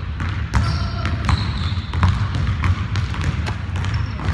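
Basketballs bouncing on a hardwood gym floor in irregular thuds, with a few short high-pitched sneaker squeaks.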